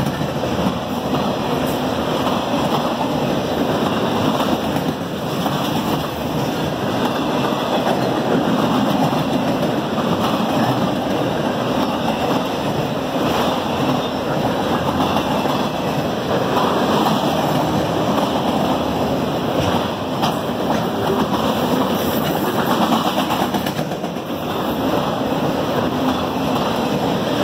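Autorack freight cars of a long train rolling past at speed: steady, loud wheel-on-rail rumble and car noise.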